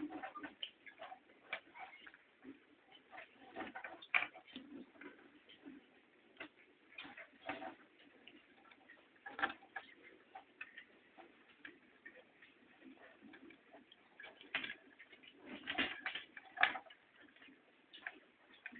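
Hermit crabs' shells clicking and knocking against each other as one crab grips and works at another's shell, in irregular taps and quick clusters of clicks.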